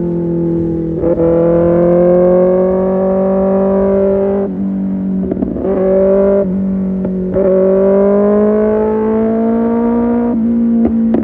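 Kawasaki ZX-6R inline-four through an Arrow Pro Race exhaust, pulling gently through the gears: the engine note climbs slowly in pitch, drops at each shift, then climbs again. Near the end the throttle closes and the pitch falls, with a few sharp exhaust pops.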